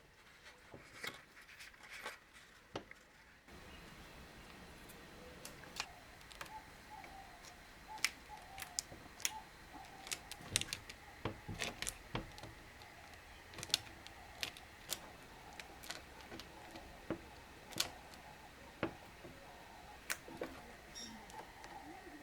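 Irregular sharp clicks and taps, scattered through the whole stretch and bunched closer together at times, over a faint background with bird calls.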